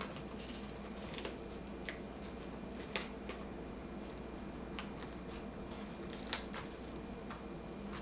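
Small plastic clicks, taps and rustles of a laptop LCD panel and its connector being handled and fitted into the screen lid, over a low steady hum.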